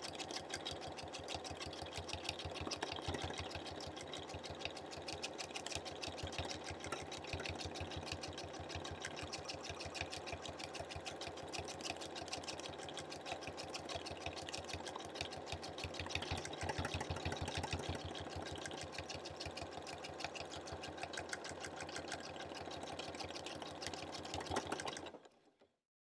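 Sewing machine stitching rapidly and evenly while free-motion quilting, with the needle hammering through the layered fabric under a hopping free-motion foot. It fades out about a second before the end.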